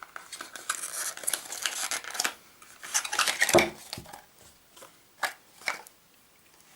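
Tight plastic packaging being rustled, scraped and pried at by hand to free a small corrector pen and brush, with a knock about three and a half seconds in and two sharp clicks a little later.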